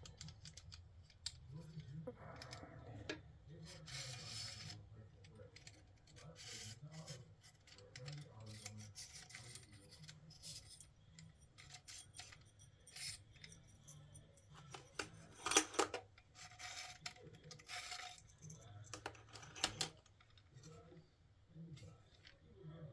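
Hard small parts of a handheld knife-sharpening system being handled, turned and fitted together: scattered light clicks and taps with a few short scraping rubs, the loudest about fifteen seconds in.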